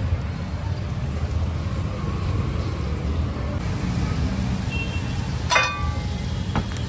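Steady low rumble of street traffic, with a single ringing metal clang about five and a half seconds in, a metal utensil striking a cooking pan, and a fainter clink near the end.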